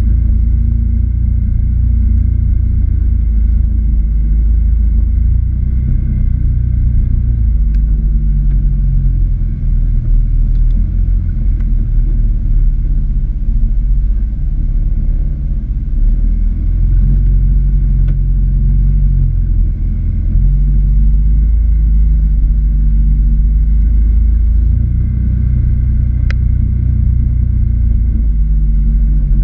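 Off-road vehicle engine running at low trail speed: a loud, continuous low rumble whose pitch steps up and down every few seconds as the throttle is eased on and off. A faint steady high whine sits above it.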